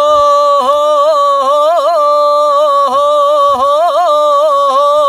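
A man singing ataba unaccompanied: long held vocal notes with quick wavering ornamental turns, the drawn-out melismatic style of a Levantine mawwal.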